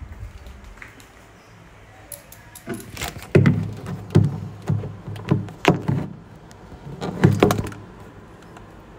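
Handling noise: a quick run of clunks, knocks and rattles as gear is picked up and set down on a desk right by the microphone. It starts about three seconds in and dies away shortly before the end.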